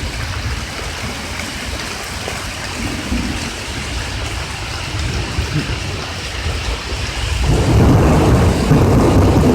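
Thunderstorm: steady rain with a low rumble, then a louder, deeper rumble of thunder swelling in about seven and a half seconds in.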